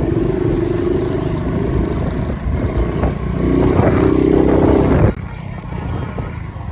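Road noise from riding in traffic: a heavy low rumble of wind and traffic with a wavering motor hum over it. It drops off suddenly about five seconds in.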